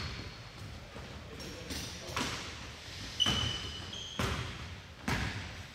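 Basketball bouncing on a gym's hardwood floor during play, four hard bounces about a second apart, with short high sneaker squeaks in between.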